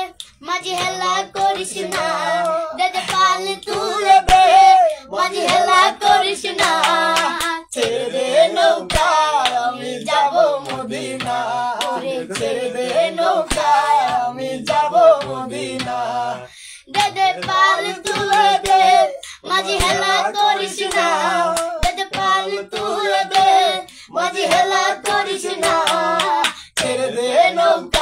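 A girl singing a Bengali song unaccompanied in phrases with held notes, with a few hand claps.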